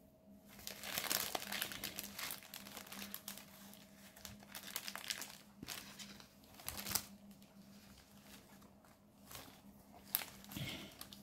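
Small plastic bags of diamond-painting drills crinkling and rustling as they are handled, in irregular spells that are loudest about a second in and again around seven seconds.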